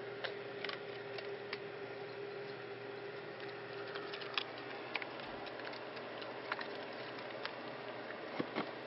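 Steady background hum with a faint constant tone, broken by scattered small clicks and taps, two of them close together near the end.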